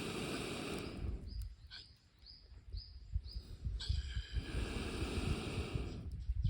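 Wood campfire crackling with scattered sharp pops, broken by two long rushing surges of noise, one at the start and one from about four seconds in. Between them a bird gives about five short chirps, evenly spaced.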